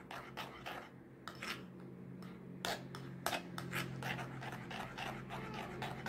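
Metal spoon stirring thin cereal porridge in a ceramic bowl, scraping and clinking against the bowl in irregular short strokes.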